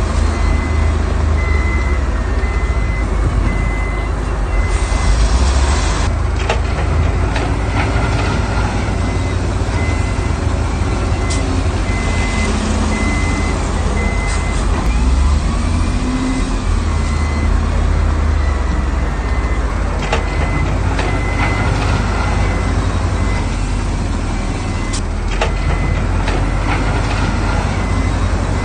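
Diesel engines of heavy earthmoving machinery, a dump truck and bulldozer, rumbling at work, with a reversing alarm beeping steadily at an even pace throughout and a few sharp knocks.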